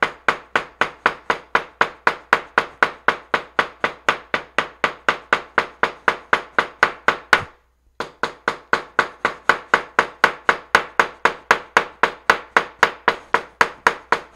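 Light hammer tapping steadily on a fern under paper towel and paper on a cutting mat, about three blows a second, with one short pause just past the middle. The blows pound the fern's green pigment into the paper for a hammered leaf print.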